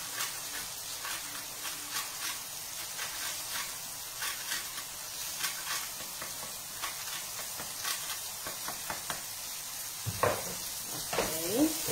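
Zucchini frying in a pan with a steady sizzle, and scattered clicks and scrapes of a utensil stirring them in the pan.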